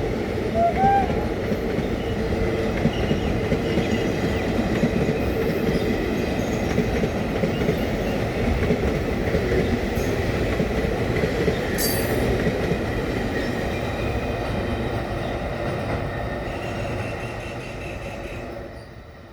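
A WAP7 electric locomotive gives one short rising-and-falling toot of its horn about a second in, and then its passenger train runs past on the track with a steady rumble and clatter as it accelerates away from the station. The noise fades out near the end.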